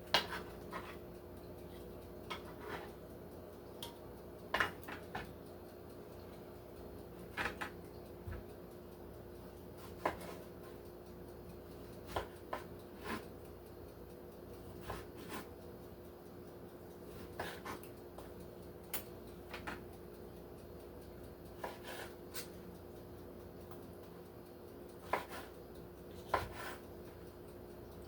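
Serrated bread knife cutting tomatoes on a cutting board: irregular knocks of the blade meeting the board every second or two, with a faint steady hum underneath.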